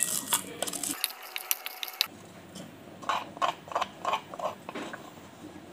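Wooden pestle crushing dry pumpkin seeds in a wooden mortar, a quick run of sharp crunching clicks. About two seconds in it changes to a spoon scraping the ground seed out of the mortar in a series of short scrapes.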